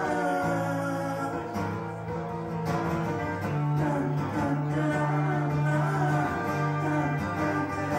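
Live music: an acoustic guitar being played with a man singing into a microphone, over long sustained low notes.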